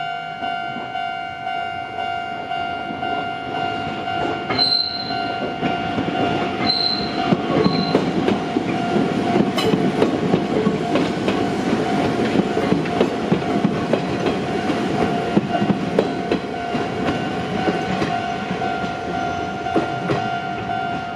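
Japanese level crossing alarm ringing continuously while an Izuhakone Railway Sunzu Line electric train passes over the crossing, its wheels clattering over the rail joints, loudest about halfway through and fading near the end. Two or three short, high toots of the train's horn about five to eight seconds in.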